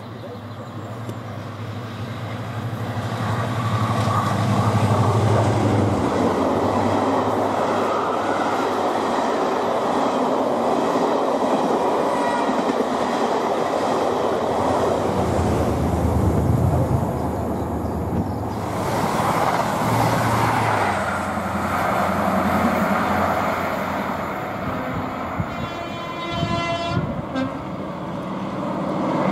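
Class 55 Deltic diesel locomotive, with twin Napier Deltic two-stroke engines, hauling a passenger train past at speed. Its steady engine note grows as it approaches, then gives way to loud rushing and clattering rail noise as the coaches pass. After a sudden change in the sound, a Deltic approaches again, with a brief high-pitched tone near the end.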